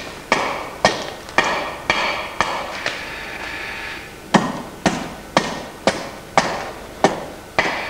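Hand axe chopping into a wooden block on a wooden chopping stump, roughing out the outside shape of a traditional Dutch wooden clog (klomp): sharp blows about two a second, with a pause of a couple of seconds midway.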